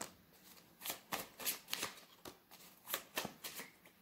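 Tarot deck being shuffled by hand: a run of short, irregular card slaps and flicks that begins about a second in.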